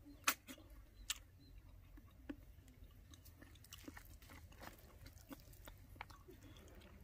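A person chewing a mouthful of rice and curry eaten by hand: faint small clicks and crunches scattered through, the loudest about a quarter of a second in.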